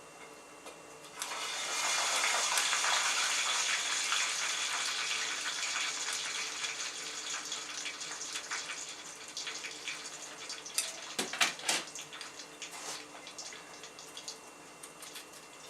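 Water running from a kitchen tap into a sink. It comes on about a second in and slowly eases off, with a few knocks near the end.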